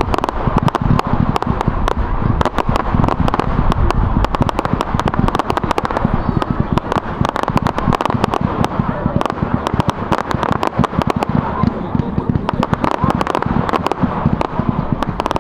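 Fireworks display: a continuous, rapid crackle of many sharp bangs, with no pause.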